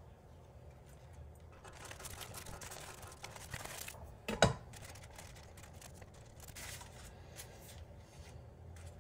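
Faint food-prep handling on a wooden cutting board as an herb pouch is made: a knife, kitchen twine and cloth are handled, giving rustling and light ticks, with one sharp knock about four and a half seconds in.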